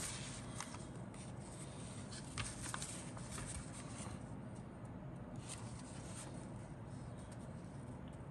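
Model kit's paper instruction sheet rustling and crinkling as it is handled, with short crackles mostly in the first half, over a steady low hum.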